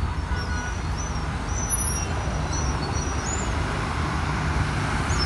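Road traffic: a line of cars driving slowly past, with a steady rumble of engines and tyres. Faint short high chirps sound over it now and then.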